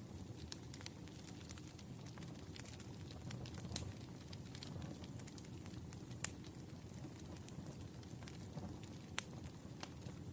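Wood fire burning with a low steady rush and irregular crackles and sharp pops, a few louder than the rest.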